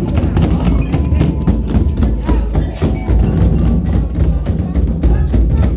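Music with rapid percussive knocks over a steady low-pitched bed.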